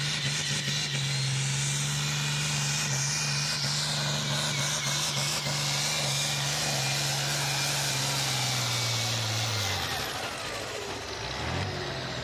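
Diesel farm tractor engine at full throttle in a tractor pull, hauling a weight-transfer sled and putting out black smoke, with a steady, loud engine note. About ten seconds in the note sags in pitch and drops off.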